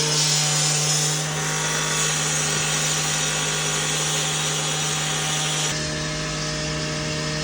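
Concrete saw cutting through a concrete slab: a steady motor drone under the loud hiss of the blade grinding. About six seconds in, the grinding hiss eases while the motor keeps running.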